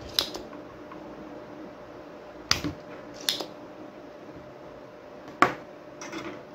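A handful of short, sharp clicks and taps, the loudest a little past the middle, from small electronic parts and tools being handled and set down on a workbench, over a faint steady hum.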